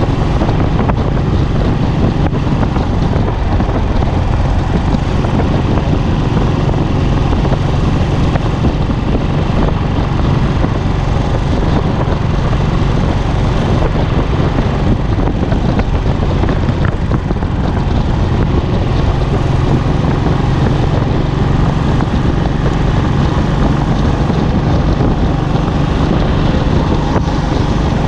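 Royal Enfield Classic's single-cylinder engine and exhaust running at a steady highway cruise, with a steady low hum and wind rushing over the handlebar-mounted microphone.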